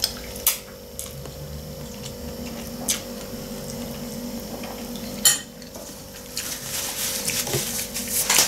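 Metal fork clinking against a ceramic plate three times while eating glass noodles, the third the loudest, followed by a stretch of small crackly eating noises. A faint steady hum runs underneath.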